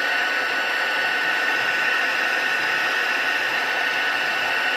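Craft embossing heat gun blowing steadily, with a constant high whine over the rush of air, as it melts clear embossing powder.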